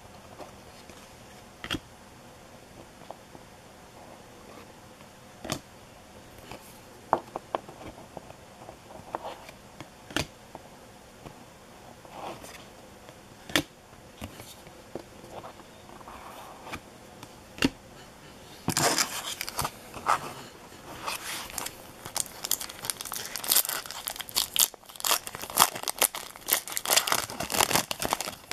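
Trading cards handled and shuffled, with occasional single light clicks and taps. About two-thirds of the way through, a Topps baseball card pack's foil wrapper is torn open and crinkled in a dense, loud run of crackling and tearing.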